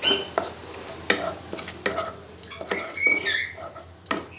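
Wooden spatula stirring and scraping a thick spice paste frying in oil in a non-stick pan, with a light sizzle and irregular knocks of the spatula against the pan.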